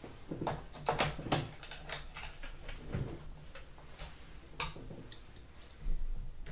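Irregular light clicks and taps of small screws and a tool being handled against the plastic bottom case of a laptop during screw reassembly, with a duller thump near the end.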